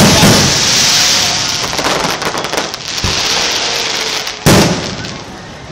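Aerial firework shells bursting: a loud bang right at the start and another about four and a half seconds in, with dense crackling in between that fades toward the end.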